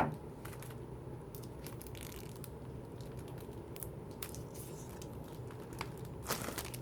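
Album packaging being handled: light crinkling and rustling of paper and plastic with scattered small clicks, and a louder rustle near the end.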